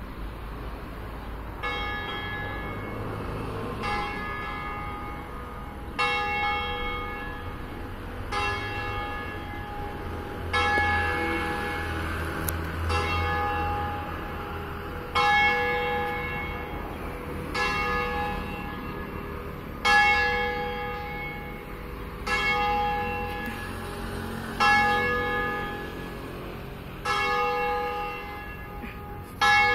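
Swinging ringing ('distesa') of a single church bell, the third of a five-bell ring in E: its clapper strikes about once every two and a half seconds, each stroke ringing on into the next. The strokes start faint and grow louder as the bell's swing builds.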